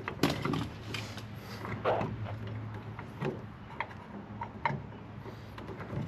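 Scattered light clicks and knocks from hands and hand tools working on a surface-mount electrical outlet box and its thick wiring, over a faint steady low hum.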